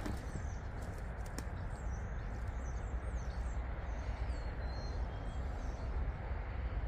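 Small birds chirping in short, quick calls several times over a steady low rumble of background noise.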